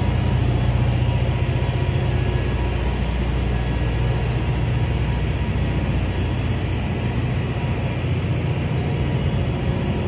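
Large generator running steadily with a loud, unchanging low hum.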